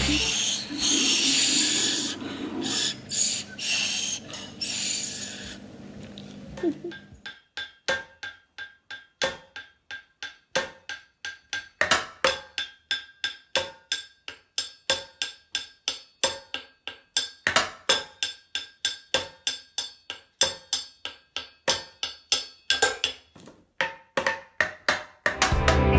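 Homemade pan pipes blown with a breathy, airy tone for about seven seconds. Then a homemade drum kit of a stainless saucepan and cardboard Pringles tubes is struck with a metal rod and a wooden stick in a steady beat of about three strikes a second, the pan ringing briefly after each hit.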